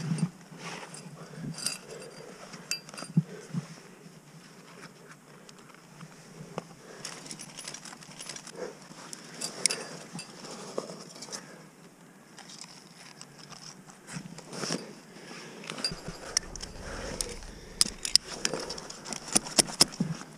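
Metal climbing gear (carabiners and cams on the harness) clinking and jangling as the climber moves on the rock. The clicks come faster near the end while a cam is placed in the crack.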